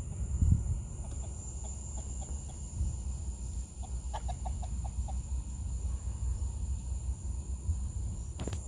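Two runs of short, quickly repeated animal calls over a steady low rumble and a thin high steady tone. The first run is faint; the second, about four seconds in, is louder, with five or six calls in quick succession. A single sharp click near the end.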